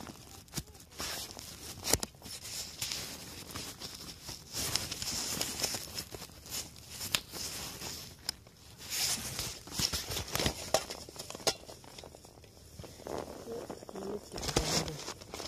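Rustling and crinkling of nylon tent fabric and gear bags being handled, with scattered knocks and taps as things are moved about.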